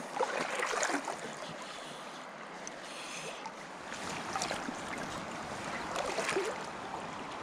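Shallow creek water running steadily, with a few brief louder splashes and sloshes about half a second in, at around four and a half seconds and at around six seconds.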